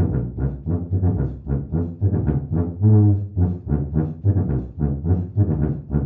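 Giant contrabass tuba, about two metres tall with a one-metre bell, played in a quick run of short, low notes, about four a second, with one longer held note about three seconds in.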